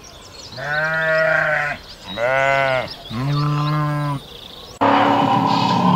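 Sheep bleating three times, each call about a second long and slightly quavering. Near the end a different, louder sound cuts in abruptly.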